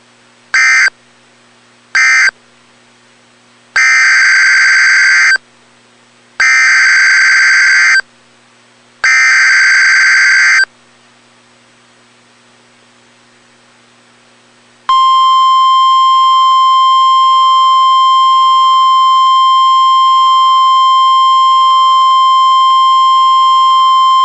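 Emergency Alert System data bursts and alarm tone on NOAA Weather Radio: the last two short end-of-message bursts of the tornado warning, then three longer buzzing SAME header bursts announcing the flash flood warning, each a little over a second and about two and a half seconds apart. After a pause of about four seconds, the steady single-pitch 1050 Hz warning alarm tone starts and holds.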